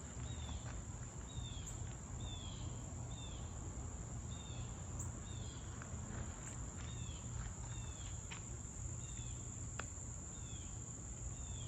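Outdoor insect chorus: a steady high-pitched drone with a short falling chirp repeating about every 0.7 seconds, over a low steady rumble.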